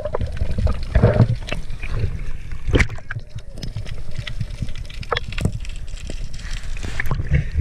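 Underwater sound heard through an action camera's housing: a muffled rush of water with scattered clicks and knocks.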